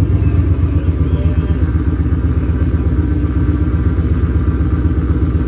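Gen 1 Ford Coyote 5.0 V8 with long-tube headers idling steadily, warming up just after its first start in the car.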